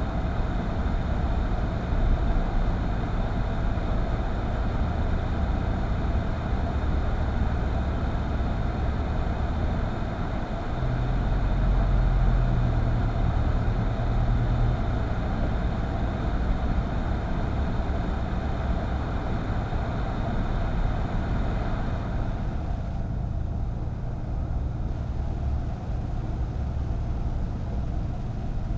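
Car driving: a steady low rumble of engine and road noise, with the engine hum swelling for a few seconds near the middle. A higher hiss fades out about two-thirds of the way through.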